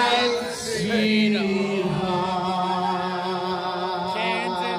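Several people singing together at close range, holding long drawn-out notes with a little waver in pitch.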